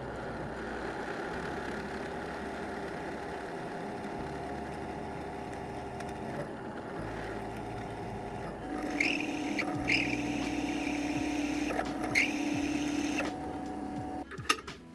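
Drill press motor running steadily. From about nine seconds to thirteen seconds it runs at a lower, stronger pitch as if under load, with three short high squeals, then settles back before cutting off at the end.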